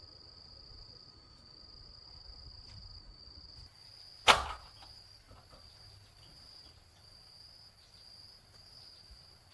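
Insects trilling steadily in a high, even tone, with one sharp knock or crack about four seconds in.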